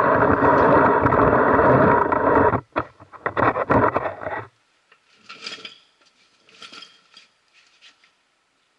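Loud rubbing and scraping for about two and a half seconds, then broken scrapes, then three short, quieter rasps about a second apart. The rasps are a Stevens hand reamer cutting out the worn threads in a Model T front axle's spindle-bolt bore.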